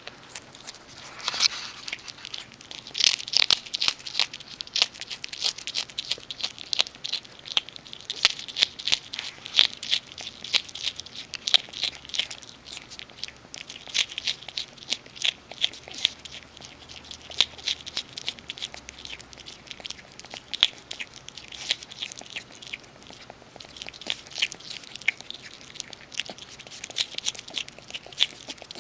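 Striped skunk eating out of a hand: a fast, irregular run of sharp, close-up chewing and crunching clicks.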